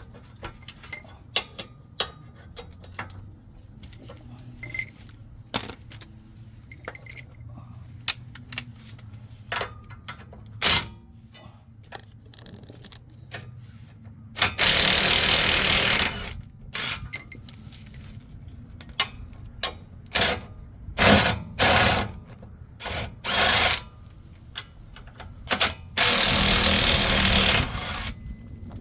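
Power impact wrench running in short bursts on the 17 mm lower control arm bolts. The longest bursts come about halfway through and near the end. Before that come scattered metallic clicks and clinks of tools being handled.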